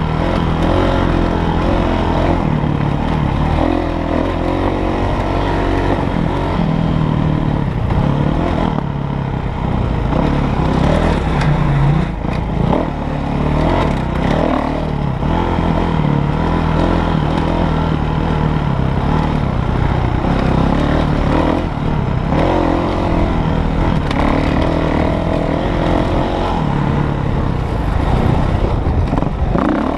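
A dirt bike's engine, heard up close from on the bike, racing around a motocross track: the engine note rises and falls again and again as the throttle opens and closes through the turns and jumps.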